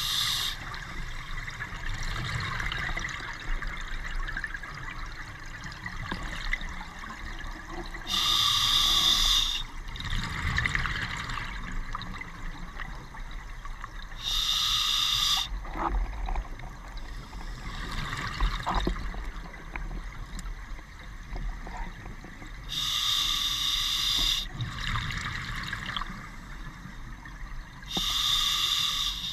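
Scuba diver breathing through a regulator underwater: four loud gurgling bursts of exhaled bubbles come about every five to nine seconds, with a softer hiss of the inhale between them.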